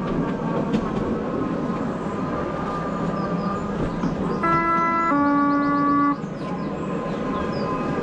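Ride-on miniature railway train running along the track with a steady rumble. A little over four seconds in, its horn sounds two notes, a short higher one and then a lower one held about a second.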